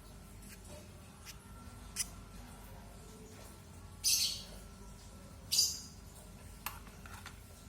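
Two-day-old lovebird chick giving two short, raspy, high-pitched begging cheeps about a second and a half apart while being hand-fed, with a few faint ticks around them.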